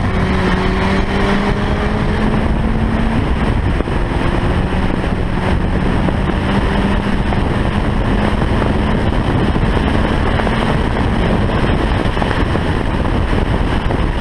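Audi TTS's turbocharged four-cylinder engine accelerating hard at highway speed, its pitch climbing slowly. About three seconds in it upshifts, the note dropping and climbing again, and it fades near the end, all over heavy wind and road noise.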